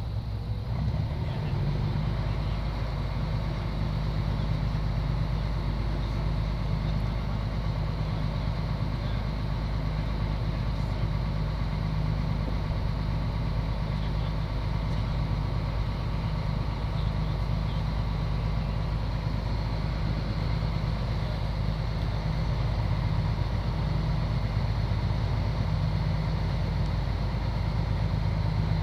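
The Pyronaut fireboat's engine running steadily while underway, a low, even drone.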